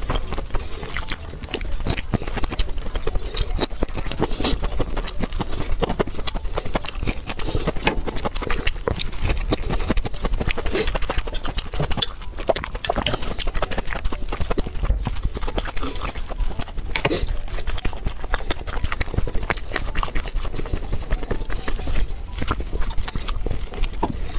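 Close-miked eating sounds: rapid chewing, with a fast, dense run of wet clicks, smacks and crunches that keeps going without a break.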